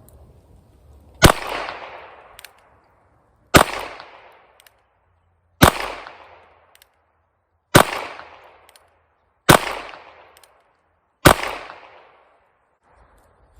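Six shots from a Ruger Wrangler Birdshead .22 LR single-action revolver firing Remington copper-plated hollow points, spaced about two seconds apart, each a sharp crack with a brief echo trailing off.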